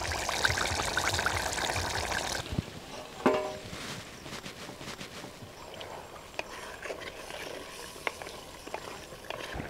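Pumpkin curry bubbling at the boil in a pot, a busy hiss that cuts off suddenly about two and a half seconds in. After that comes a spoon stirring the stew with scattered small taps and clicks, and one short pitched note about a second after the cut.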